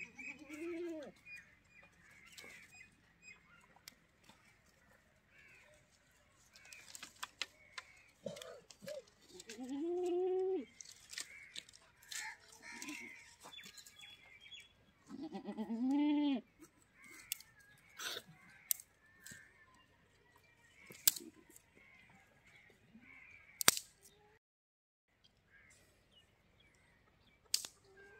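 Goat bleating three times: a short call at the start, then two longer calls about a second each, the last the loudest. Birds chirp faintly throughout, and several sharp clicks sound in the second half.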